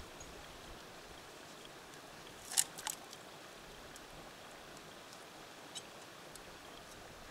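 Steel body-grip beaver trap and its chain clinking as they are lifted out of icy water: two sharp metal clinks about two and a half seconds in, then a few faint ticks, over a faint steady hiss.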